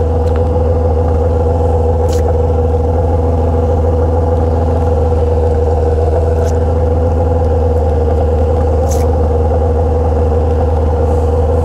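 Yamaha XJ6's inline-four engine idling steadily through a straight-pipe Atalla exhaust with no muffler, a deep, even drone.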